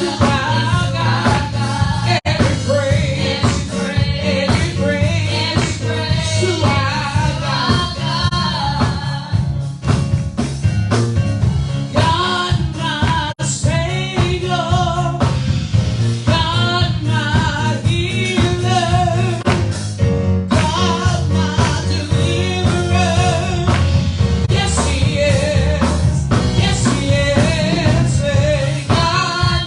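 Gospel praise music: singing with wavering, held notes over an instrumental backing track with a steady beat.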